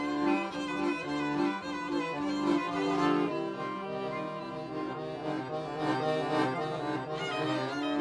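Two violins and an accordion playing an instrumental improvisation together.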